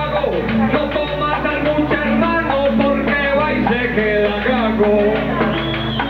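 Paisa trova: a man singing an improvised verse over guitar accompaniment.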